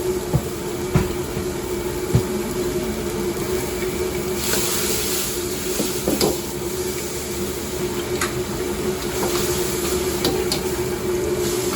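Stir-frying in a wok: food sizzling over the steady hum of the kitchen burner or extractor, with a few sharp knocks of the metal ladle against the wok and a louder burst of sizzling about four and a half seconds in.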